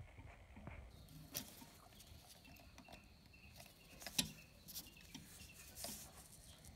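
Faint handling sounds as a piston ring is worked by hand onto a Linhai 300 ATV piston: a few light clicks, the sharpest about four seconds in.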